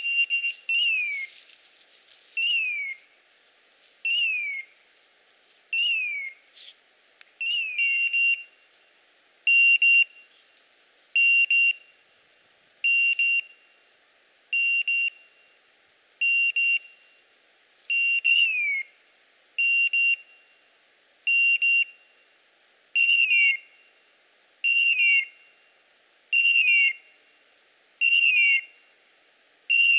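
Dog-training beeper collar giving its point signal: a loud beep repeating about every second and a half to two seconds, some beeps steady and some with a falling chirp. This is the sign that the English setter has stopped and is holding point.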